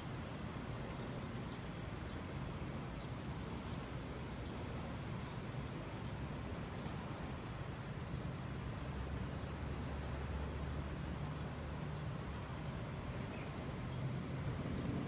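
Outdoor street ambience: a steady low rumble of distant traffic, with faint short bird chirps every second or so.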